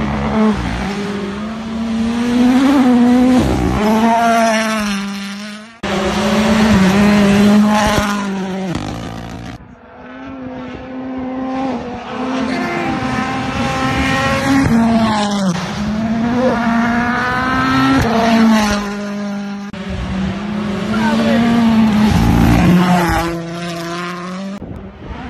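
Ford Puma Rally1 rally cars' turbocharged four-cylinder engines revving hard at speed on gravel, the pitch climbing and dropping with each gear change, across several passes that cut abruptly from one to the next.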